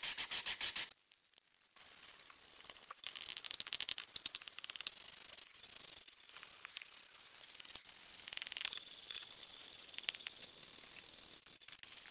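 Wooden bowl being sanded by hand with sandpaper. It starts with fast, loud back-and-forth strokes for about the first second, then settles into steadier rubbing.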